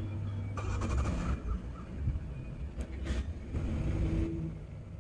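Crows cawing, three harsh calls in the first four seconds, over a low steady rumble.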